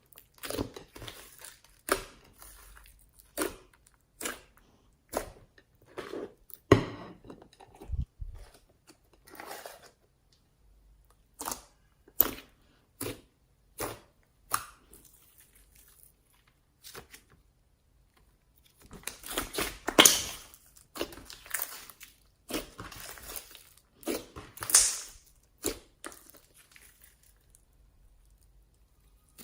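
Homemade slime being pressed, stretched and mixed by hand, making separate sticky crackles and pops, then a denser run of crackling after a short lull.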